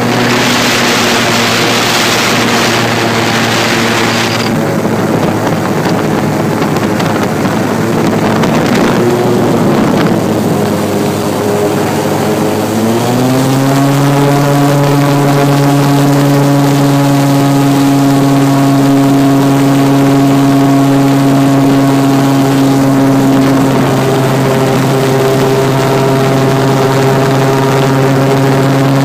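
Airboat engine and propeller running steadily, with a broad hiss over it for the first four seconds or so. About halfway through the engine speeds up, its hum rising in pitch, then holds steady at the higher speed.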